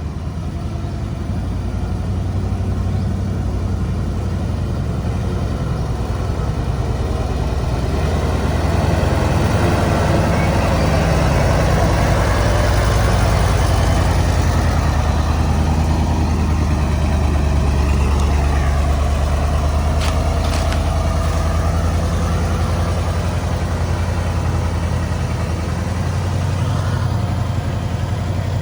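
Heavy diesel engine of earth-moving machinery working, its load and loudness rising through the middle and easing toward the end, with a couple of brief clicks about two-thirds of the way through.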